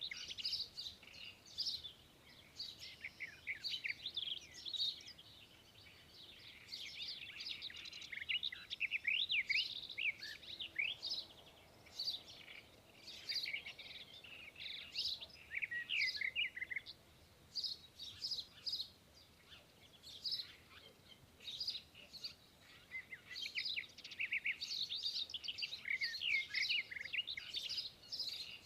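Many birds chirping and calling at once, a dense chorus of short, quick rising and falling chirps that thins a little midway and then picks up again.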